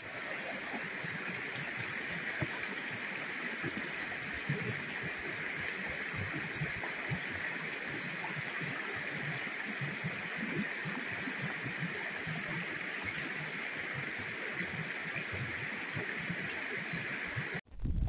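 Shallow stream running over stones: a steady babbling rush of water that cuts off suddenly near the end.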